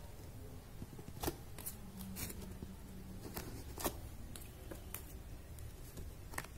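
Hands handling paper-covered cardboard and a pearl bead: light paper rustling and scattered sharp clicks, about seven spread unevenly through the stretch.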